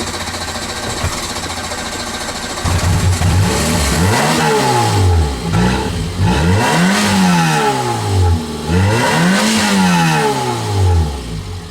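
Citroën Saxo petrol engine running steadily, then revved hard three times, its pitch rising and falling with each pump of the throttle.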